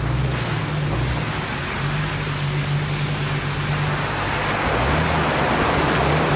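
Jeep Cherokee XJ engine running at low revs, heard from inside the cabin while crawling through a muddy, puddled track. Its note dips and picks up again about two-thirds of the way in, and a rushing of water and mud splashing under the vehicle grows louder over the second half.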